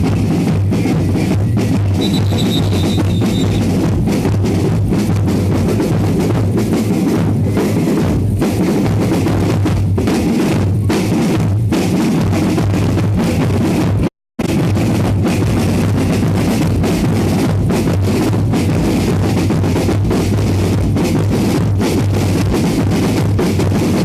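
Loud drum music, bass drum and snare beating a steady, dense rhythm with cymbals. The sound cuts out completely for a fraction of a second about fourteen seconds in.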